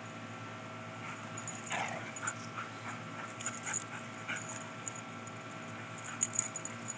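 Two Siberian huskies play-fighting, giving a brief falling whine about two seconds in and a few short yips, over a steady background hum. Sharp clicks near the end are the loudest sounds.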